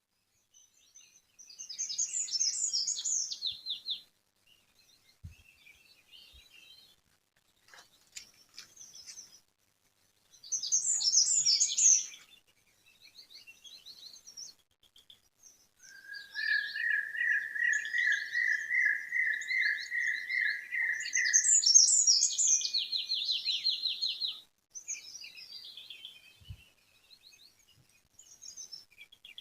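Songbirds singing in turn: short, high, rapidly tumbling song phrases with gaps between them. About halfway through, a lower trill of evenly repeated notes runs for about five seconds, overlapped near its end by a fast, high trill.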